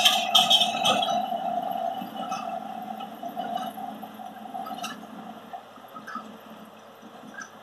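Tractor and Massey Ferguson 2270 XD large square baler running while baling, a steady machine drone that fades steadily as the rig pulls away, with a few faint clinks.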